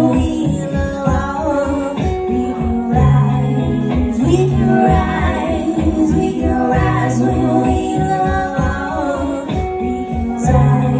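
Live band music: a woman singing over electric guitars and a keyboard, with a steady low beat.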